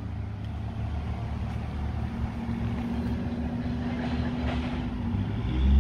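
A motor vehicle engine running steadily with a low rumble, growing louder and deeper near the end.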